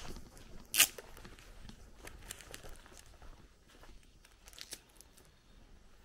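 Footsteps on a grassy dirt path, with one loud, sharp crunch a little under a second in.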